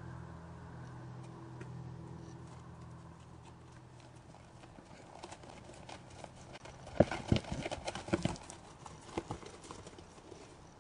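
White-tailed deer hooves striking frozen, snow-covered ground as the deer trot past: a quick run of sharp hoofbeats a little past the middle, then a few more. A low steady hum fades out in the first half.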